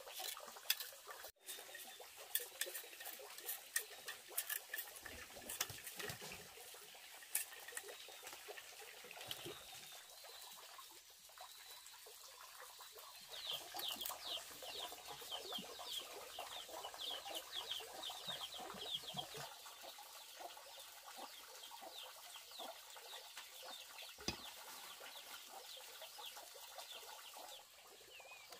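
Chickens clucking, with scattered light clicks and knocks in the first half and a run of quick high chirps in the middle.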